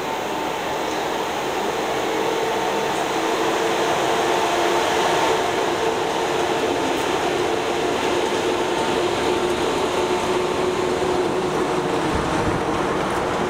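ZSSK class 350 dual-system electric locomotive pulling away slowly with its train, running with a steady hum of several tones over a rumble that grows a little louder a few seconds in as it draws past.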